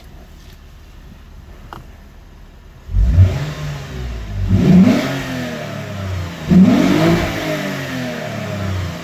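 2008 Lexus IS250 AWD's 2.5-litre V6 through a freshly fitted DNA aftermarket dual-canister stainless exhaust. It comes in loudly and suddenly about three seconds in, then is revved twice in quick blips, each rising and falling in pitch, and settles back to a steady low idle.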